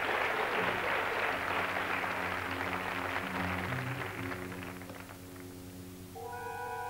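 Studio audience applause fading away over the first few seconds, as low, held notes of dramatic TV-series music rise beneath it. Near the end, higher sustained notes come in.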